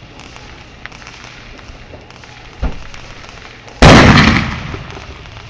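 A consumer firework goes off with a sudden loud blast almost four seconds in, its noise dying away over about a second and a half. A smaller single pop comes about a second before it.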